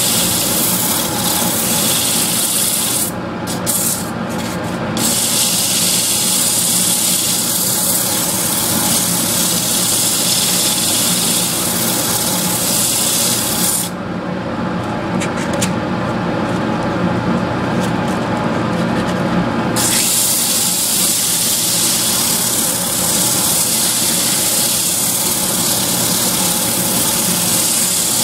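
A lathe running steadily with a rasping hiss from a tool working the spinning workpiece. The hiss stops briefly about three seconds in and again for about six seconds in the middle while the motor keeps running.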